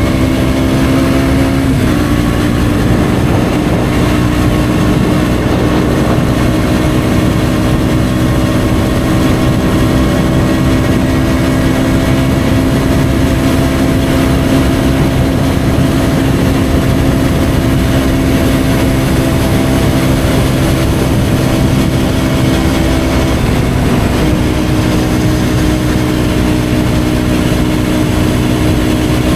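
KTM Duke 125's single-cylinder four-stroke engine through an Akrapovic exhaust, running steadily under way with a loud, even note that climbs slowly. The note dips briefly about two seconds in and again near the end, like gear changes.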